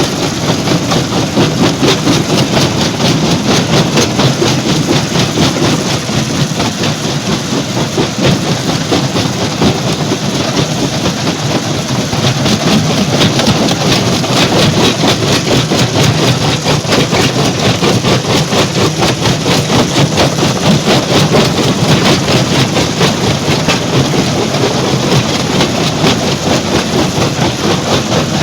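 Stone crusher machinery running: a loud, steady clatter with a fast, even rhythm of knocks.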